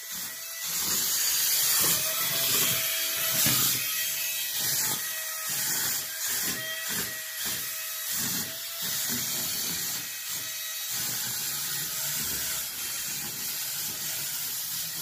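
Mayouth wall-climbing remote control car running, its suction fan giving a steady hiss with a faint steady whine. Irregular rubbing and whirring from the drive for the first ten seconds or so.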